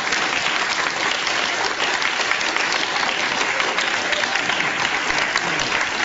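An audience of many people applauding steadily: a dense, even patter of hand claps.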